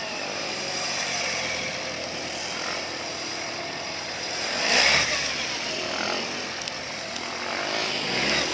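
Suzuki Hayabusa GSX1300R inline-four engine revving up and down as the motorcycle brakes and accelerates through tight cone turns. It is loudest about five seconds in, as it passes close by.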